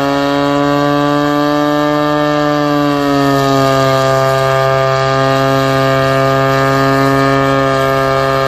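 Twin-supercharged Mazda 12A two-rotor rotary engine in a Leyland tractor, running loud at steady high revs under load while pulling a sled. Its pitch creeps up slightly, dips a little about three seconds in, then holds steady.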